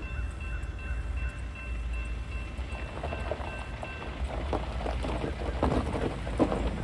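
Grade-crossing warning bell ringing in a quick repeating pattern and stopping about four seconds in as the gates come down. From about three seconds on, tires crunch over gravel as a pickup rolls forward, over a steady low rumble.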